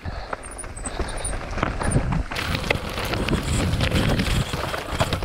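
Forbidden Supernought mountain bike riding down a dirt trail: tyres crunching over dirt and stones and the bike rattling over bumps, with a low rumble of wind on the helmet or bike-mounted camera. The noise gets louder about two and a half seconds in as the speed picks up.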